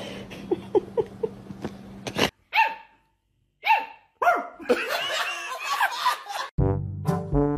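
A husky puppy barks twice, each short call falling in pitch, then goes on yipping while people laugh.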